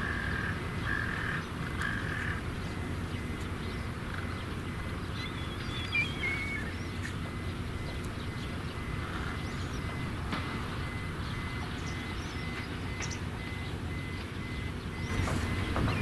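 Crows cawing several times in short calls during the first couple of seconds, then a black kite's high whistled call falling in pitch about five seconds in. Under the calls runs a steady low background rumble that swells near the end.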